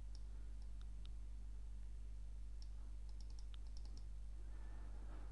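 Faint, scattered clicks of a computer being operated, several in quick succession about three seconds in, over a steady low electrical hum.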